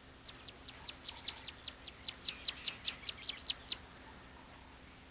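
A bird calling a rapid series of short, high chirps, about five a second, growing louder, then stopping about three quarters of the way through.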